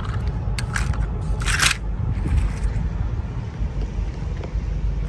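Handling noise from a plastic toy and basket: two short scraping rustles in the first two seconds, the second louder, over a steady low rumble.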